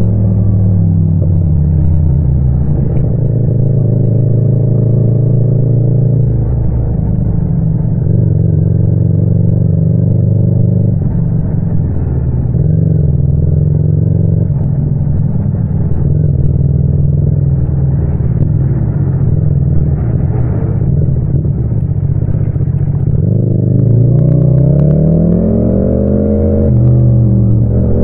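Yamaha MT-07's parallel-twin engine heard from the rider's seat while riding in traffic, running mostly steady at moderate revs. Near the end the revs climb, drop and climb again, as when accelerating through an upshift.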